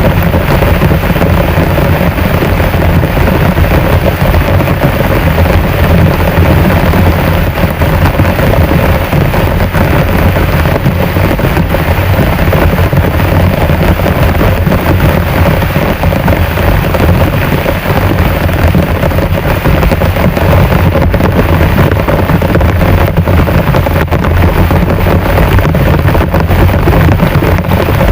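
Heavy rain pouring steadily and loudly, with a deep rumble beneath it.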